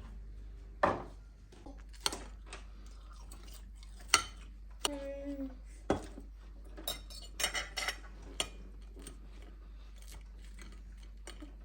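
Cutlery and dishes clinking and knocking, a string of separate sharp strikes, with a short pitched sound about five seconds in.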